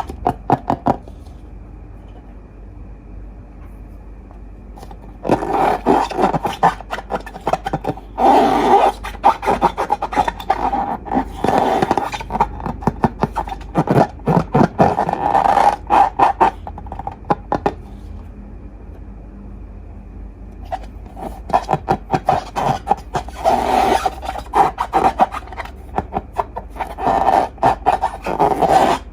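Slime being handled and squished, making rapid, crackly clicks in two long bursts with quieter pauses between them.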